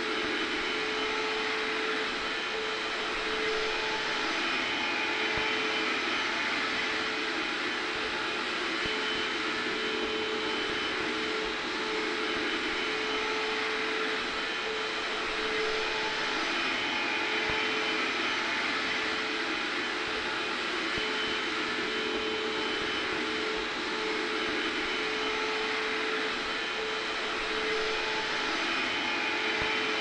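Hair dryer blowing steadily with a vacuum cleaner running underneath: an even rush of air over a constant motor hum and a faint high whine, unchanging throughout.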